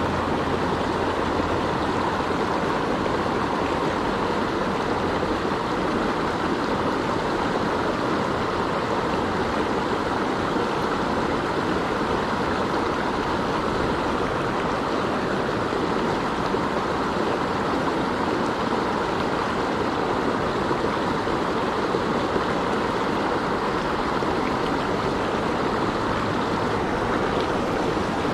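Mountain creek rushing over rocks, a steady loud flow of water.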